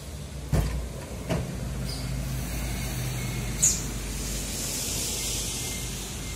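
Heavy timber log being rolled up skid poles and loaded onto the steel bed of a small pickup truck: two heavy thuds in the first second and a half, and a sharp knock a little past the middle, over a steady low hum.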